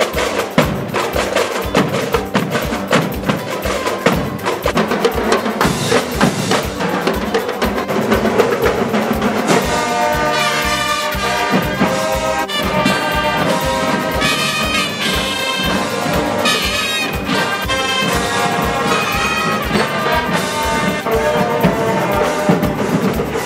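Uniformed marching band playing: brass horns over a steady bass-drum beat, with the horns coming in strongly about ten seconds in.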